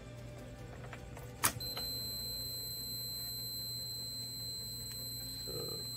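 A sharp click about a second and a half in, then a multimeter's continuity beeper sounding one steady high tone: the transmission's reverse light switch is closed and conducting.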